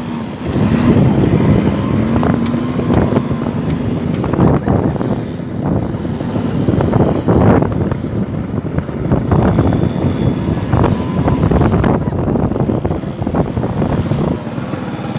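Several quad bike (ATV) engines running and revving as the quads ride around on sand, the engine note rising briefly in the first few seconds.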